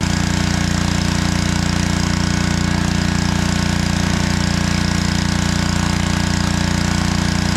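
Honda GCV160 single-cylinder four-stroke engine of a Ryobi 3000 psi gas pressure washer running steadily, with an even hiss over it. It cuts in abruptly at the start.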